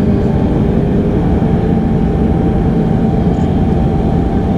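Cabin noise beside the wing of a Bombardier Dash 8 Q400: its Pratt & Whitney PW150A turboprops and six-blade propellers droning steadily with a buzzing rasp, sounding like a lawn mower.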